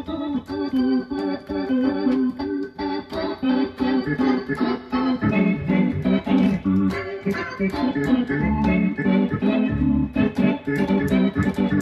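Vox Continental 300 transistor organ played in chords through a Korg G4 rotary speaker simulator, each chord starting with a short key click. Low bass notes join in about five seconds in.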